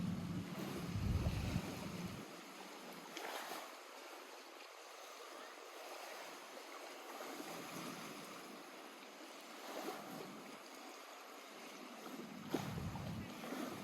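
Lake water lapping at the shore in small, soft surges, with a low rumble during the first two seconds.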